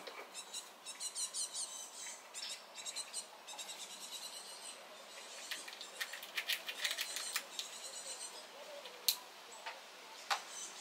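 Eurasian red squirrel squeaking: repeated runs of rapid, high-pitched squeaks in short bursts, the loud defensive calling it makes when another squirrel approaches. A couple of sharp clicks come near the end.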